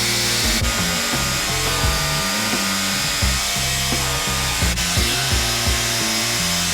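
Background music with a steady beat over the steady hiss of a power grinder grinding down a Leatherman MUT multitool.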